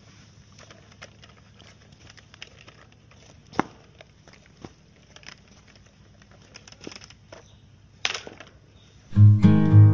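Scattered light clicks and taps of a plastic toy bicycle being handled on concrete, with one sharper knock a few seconds in and another near the end. Strummed acoustic guitar music starts loudly just before the end.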